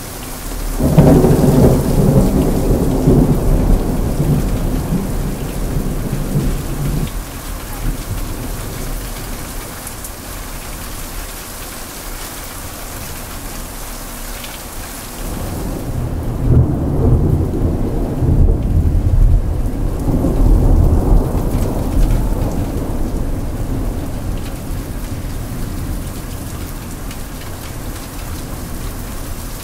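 Heavy rain falling steadily with two long peals of thunder: one rolls in about a second in and rumbles for some six seconds, the second builds about halfway through and rumbles for several seconds before fading back under the rain.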